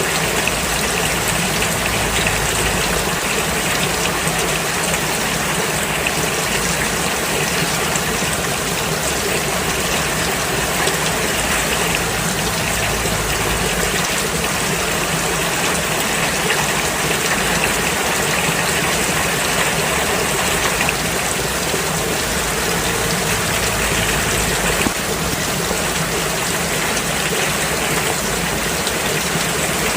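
Steady heavy rain falling, a dense even hiss of drops with no letup.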